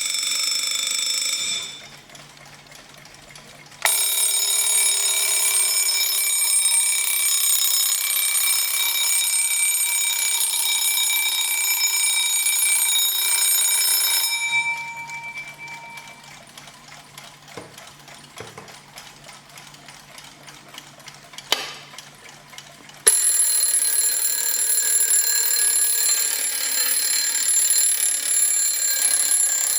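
Alarm clock bells ringing in turn, each a continuous rapid ringing with its own set of tones: one stops about two seconds in, a second rings from about four seconds in to about halfway, and a third starts near the end. The quieter gaps between them hold a low hum and a few clicks.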